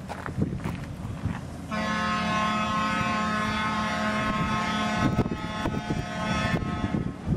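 Horn of a narrow-gauge diesel railcar, the ex-County Donegal Railways Walker railcar, sounding one long steady blast of about five seconds as the railcar approaches, starting about two seconds in. The railcar's engine rumbles underneath, with a few knocks near the end.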